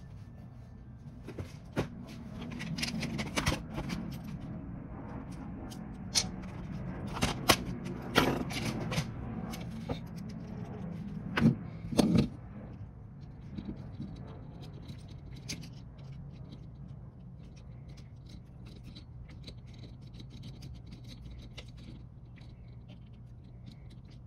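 Clicks, taps and scrapes of small hand tools against the metal throttle shaft and butterfly plate of a DFC328 carburetor as the butterfly plate is removed, busy in the first half and sparse later, over a steady low hum.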